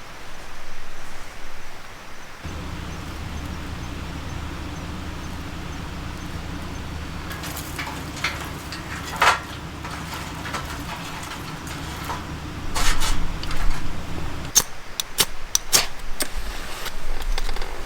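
A steady low motor hum starts abruptly a couple of seconds in and cuts off suddenly near the end. Scattered sharp clicks and knocks come over it, growing more frequent toward the end.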